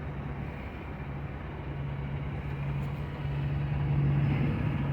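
An engine idling, a steady low hum that grows a little louder about three seconds in.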